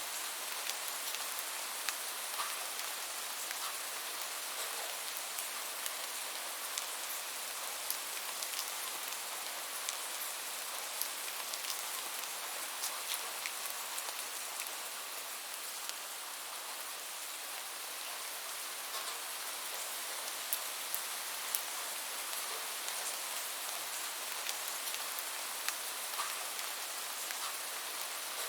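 Steady rain falling, a continuous hiss dotted with the sharp ticks of single drops striking a surface.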